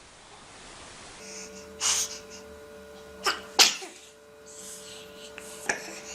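Baby sneezing: four short, sharp sneezes, the loudest two in quick succession about halfway through.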